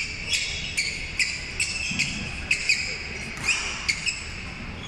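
Badminton players' court shoes squeaking on the wooden sports-hall floor: a quick run of short, high squeaks, roughly two a second.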